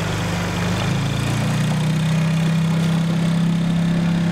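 Small outboard motor on an inflatable dinghy running under way, its pitch rising a little about a second in and then holding steady.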